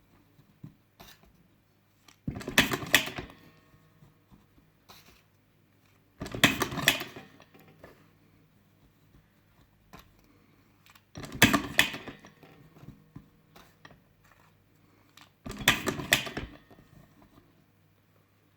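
A Top-O-Matic lever-operated cigarette-filling machine worked four times. Each stroke of the lever gives about a second of mechanical rattle and scrape as it packs tobacco into a filter tube, and there are light clicks between the strokes.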